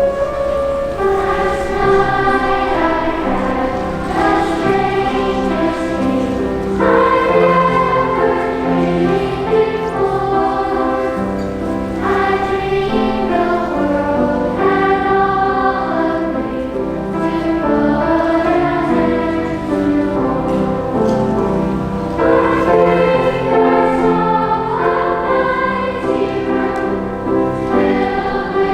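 A choir singing with held notes that change pitch every second or so.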